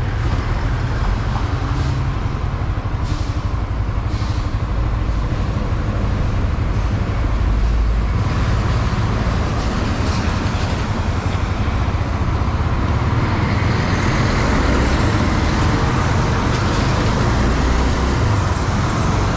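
Honda Twister 250F motorcycle riding on a highway: wind noise and engine sound on the rider's microphone, with road traffic around. It grows louder about eight seconds in.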